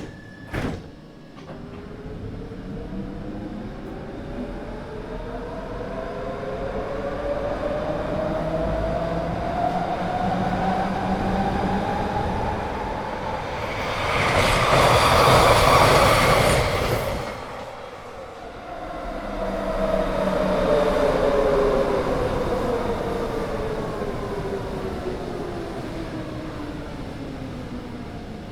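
Electric subway train's traction motors whining, rising steadily in pitch as it accelerates, then a loud rushing swell about halfway through, and a whine falling in pitch as it slows again. A short sharp click comes right at the start.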